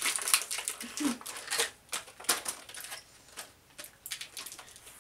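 Clear plastic toy packaging crinkling as it is handled, a string of irregular sharp crackles.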